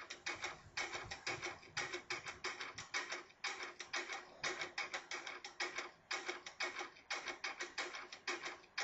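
Quiet background music made of quick, short, clicking notes in a steady rhythm, several a second.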